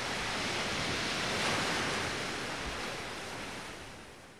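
Ocean surf washing onto a beach, swelling about a second and a half in, then fading out near the end.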